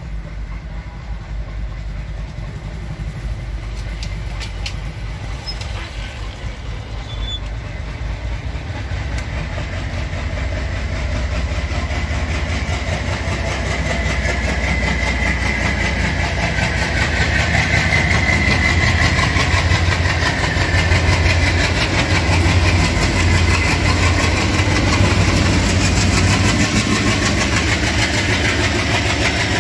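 Diesel locomotive hauling a passenger train, approaching and then passing: a low engine rumble with rolling wheel-on-rail noise grows steadily louder through the first half and stays loud as the coaches go by.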